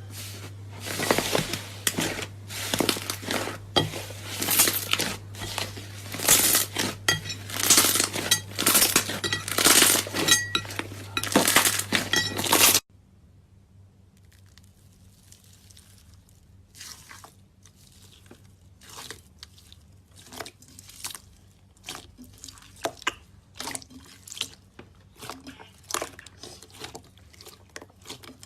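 Slime being squeezed and poked by hand, making dense wet crackling, popping and squelching over a low steady hum. About 13 seconds in, the sound cuts abruptly to a much quieter stretch of sparser pops and squelches.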